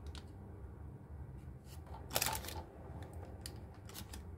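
Silicone spatula spreading thick cake batter in a parchment-lined baking pan: faint, scattered scrapes and soft paper rustles, with one louder scrape about two seconds in.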